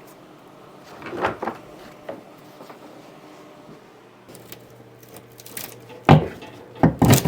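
Wooden knocks and scrapes as old boards nailed over a wall opening are worked loose, ending in two loud, sharp knocks near the end.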